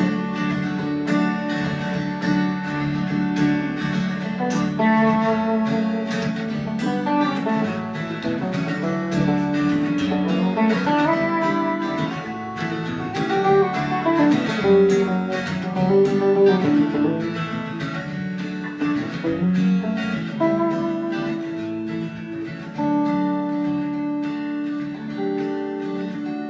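Instrumental break on two guitars: a steel-string acoustic guitar strummed as the rhythm part, with an electric guitar playing melody lines over it, some notes bending in pitch.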